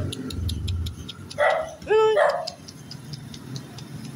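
Small dog barking, two short barks about one and a half and two and a half seconds in, with a brief high-pitched cry between them.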